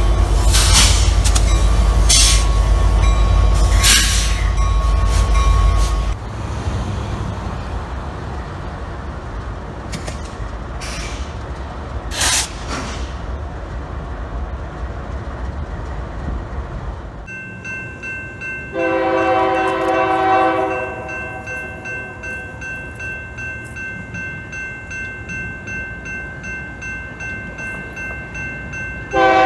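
Diesel locomotives passing close by, a heavy low rumble with some wheel squeal. It is followed by a quieter locomotive rumble with a few clicks and bangs. Then a distant train horn sounds a chord for about two seconds, a steady high ringing runs on after it, and the horn sounds again right at the end.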